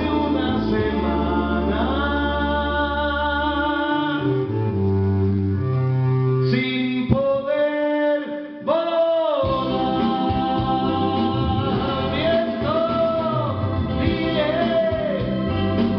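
A man singing into a handheld microphone over instrumental accompaniment, holding long notes with a wavering vibrato.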